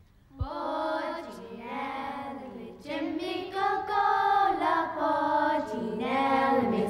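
Children singing a song together, their voices coming in about a third of a second in and holding long notes.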